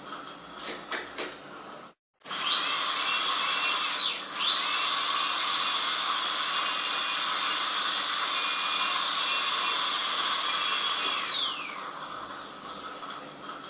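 Dentist's drill spinning up to a high, steady whine. It dips briefly and spins up again, runs steadily, then winds down with a falling pitch. Before it, a short gap of silence follows the tail of an earlier wind-down.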